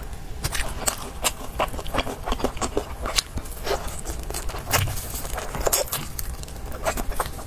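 Crunching bites and chewing of crispy glazed fried chicken: a quick, irregular run of sharp crackles.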